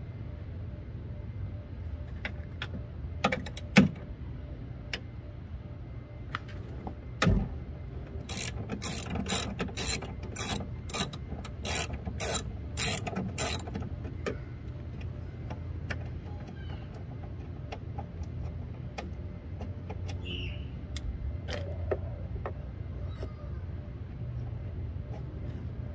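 Ratchet wrench clicking in short bursts, about two a second for several seconds, while bolts holding a car's window regulator inside the door are undone. A few sharp metal knocks come before it, the loudest about four seconds in.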